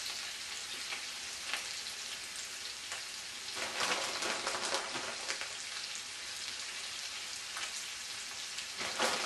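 Cube steaks frying in a pan: a steady sizzle with crackles and spits, which grows louder about three and a half seconds in and again near the end.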